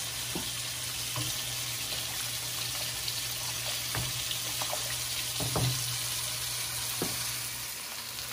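Egg noodles in a stainless stockpot of water at a rolling boil, stirred with a wooden spoon that knocks against the pot a few times, over a steady low hum.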